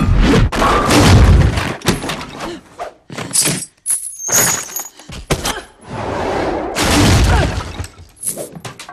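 Fight sound effects: wooden furniture crashing and splintering and heavy thuds of bodies hitting the floor, echoing in a large room. A run of crashes at the start, a short lull about three seconds in, then more crashes and thuds.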